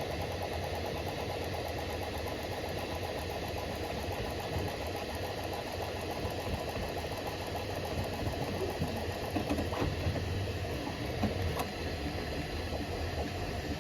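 Bambu Lab A1 3D printer running a print: the stepper motors buzz steadily as the print head moves, under the hum of the cooling fans, with a few light ticks in the second half.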